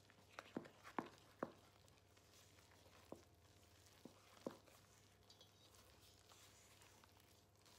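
Wooden spoon stirring flour and milk into a shaggy dough in a stainless steel mixing bowl, knocking against the metal side in about seven sharp taps over the first four and a half seconds, then only faint stirring.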